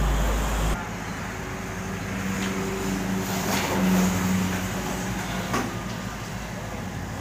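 Komatsu PC78US mini excavator's diesel engine running, rising in pitch and loudness about four seconds in as it works the boom and bucket under hydraulic load. A few sharp knocks as soil and stones drop into the dump truck's steel bed.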